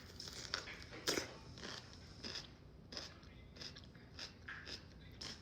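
A person chewing a crunchy pickled green tomato close to the microphone, a string of irregular short crunches.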